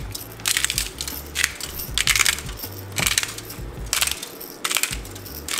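Hand-twisted pepper grinder grinding peppercorns in a string of short grinding rasps, about one every half second.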